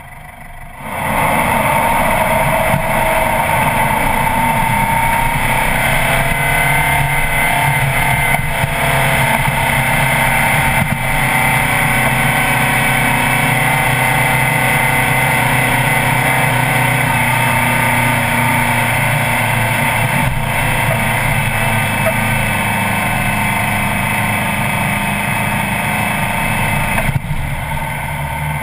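Four-wheel-drive's engine under load driving along a soft sand track. The engine comes in loud about a second in, then runs steadily, with its pitch shifting a few times as the revs change.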